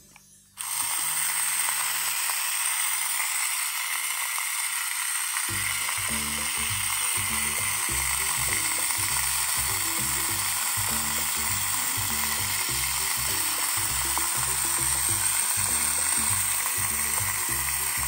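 Toy vacuum cleaner's small battery motor switched on about half a second in, then whirring steadily with a high, even whir.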